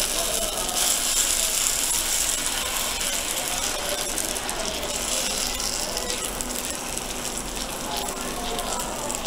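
Steel ladle scraping and patting on a cast-iron dosa griddle as thick adai batter is spread out, with many quick rasping clicks over a steady sizzle of the batter frying in hot oil.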